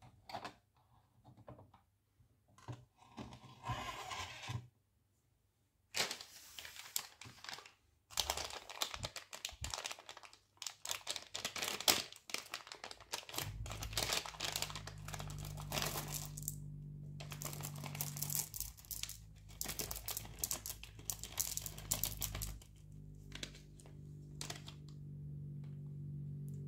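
A plastic candy bag of M&M's crinkling and being torn open, preceded by a few clicks as the waffle iron's switch and lid are handled. A low steady hum comes in about halfway through.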